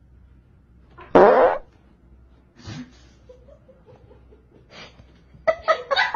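A person's loud fart, lasting about half a second, about a second in, followed by a rapid pulsing sound near the end.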